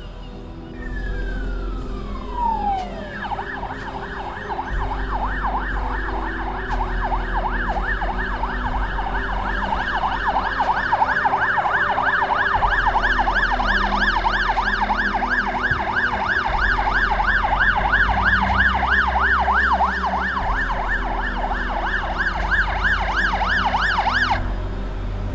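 Scania fire engine's electronic siren: one falling sweep, then a fast rising-and-falling yelp about three times a second that cuts off suddenly near the end. A low engine rumble runs underneath.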